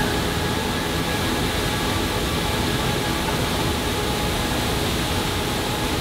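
Tall waterfall plunging into a rock pool: a steady rush of falling water.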